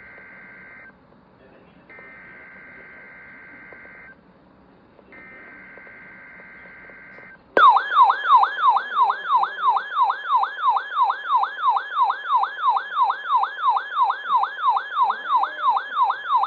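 Emergency Alert System header: three bursts of SAME digital data tones, each about two seconds long with short gaps. About seven and a half seconds in, a loud warbling attention tone cuts in and sweeps up and down about three times a second.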